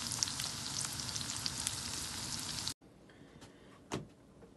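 Homemade noodles sizzling and crackling as they fry in oil in a pan, stirred with a wooden spoon. The sizzle cuts off sharply about two and a half seconds in, leaving faint room tone.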